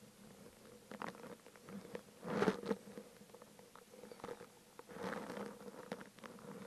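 Paste being dabbed and scraped onto the splines inside a metal motorcycle drive flange with a small brush: soft scratchy rustles and light clicks as the flange is turned in the hand, with a louder scuffing handling noise about two and a half seconds in and again around five seconds in.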